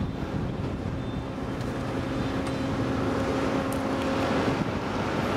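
Steady engine hum with one held tone, heard through wind noise on the microphone; the tone fades out about four and a half seconds in.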